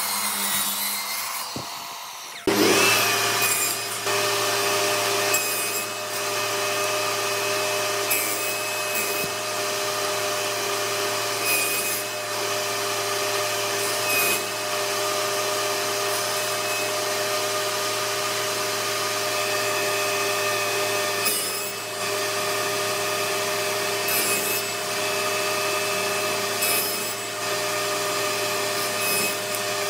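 About two and a half seconds in, a table saw starts with a sudden loud burst and then runs steadily. Its spinning blade cuts small pieces of pallet wood pushed through on a crosscut sled, with a brief louder surge at each cut, every few seconds.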